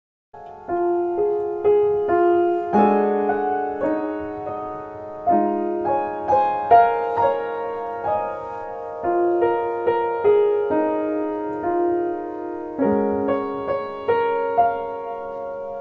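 Background piano music: a gentle melody of struck notes over held chords, starting about half a second in.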